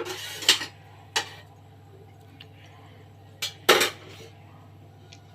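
A kitchen utensil clinking against a cooking pan: a few short, sharp knocks, one about a second in and two close together past the middle, over a steady low hum.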